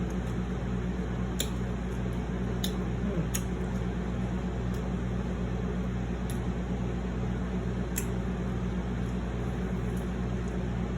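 Quiet eating of a seafood boil: a few faint, sharp mouth clicks over a steady low background hum.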